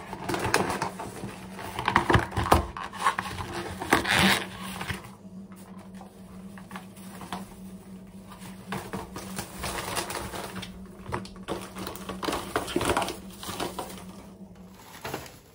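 Paper, cardboard and plastic bags rustling and crinkling as they are handled and gathered up, in busy bouts with many small crackles, loudest in the first few seconds. A steady low hum runs underneath and stops shortly before the end.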